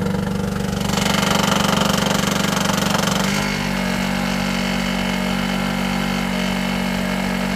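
Small two-stroke petrol generator running hard under near-full load from a 600-watt oil-filled heater. A little over three seconds in, its sound changes and settles into a slightly quieter, steadier drone.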